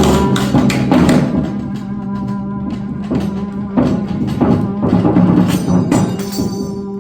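Free-improvised music: a trombone holding a low, steady note under irregular percussion strikes and rattles.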